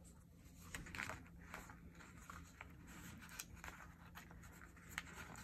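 Faint rustling of paper sticker sheets being leafed through and handled, with scattered light ticks.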